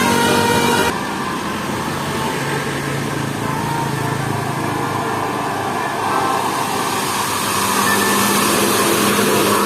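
A run of musical notes stops about a second in, leaving a bus engine running steadily as it climbs. It gets somewhat louder from about two-thirds of the way through.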